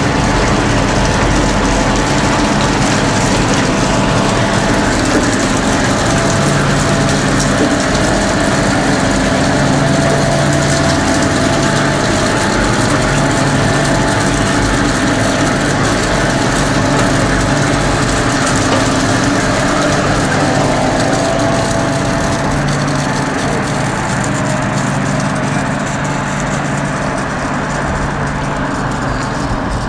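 A 15-ton-per-day flake ice machine running: a loud, steady mechanical hum with several held tones over a broad hiss, easing off slightly near the end.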